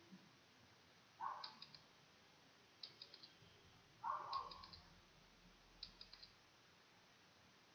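Faint clicking: four clusters of three or four quick, sharp clicks, spaced about a second and a half apart. A short soft thud comes just before the first and the third cluster.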